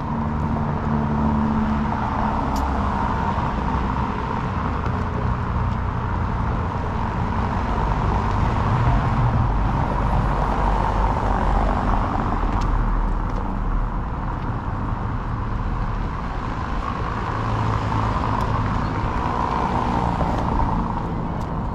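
Steady street traffic noise. A car drives past on the cobblestone street, loudest about halfway through, with the rumble swelling again near the end.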